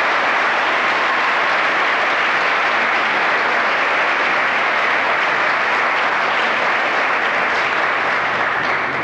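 A large audience applauding, a steady mass of clapping that begins to die away at the very end.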